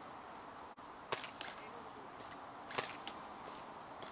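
Scattered single shots from airsoft guns, short sharp pops coming irregularly, about half a dozen in four seconds, over a steady faint hiss.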